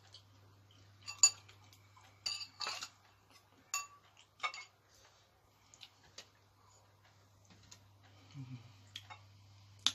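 A metal spoon clinking and scraping against a bowl of soup, with several sharp clinks in the first half and fainter ones later, over a low steady hum.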